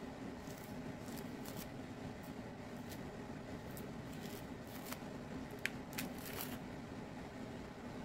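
Mandarin orange peel tearing and crackling as it is pulled off by hand, in scattered soft crackles with a cluster of sharper ones a little past halfway, over a steady low hum.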